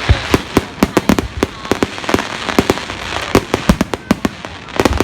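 Fireworks display going off in a rapid, uneven volley of sharp bangs and cracks, several a second, with no break.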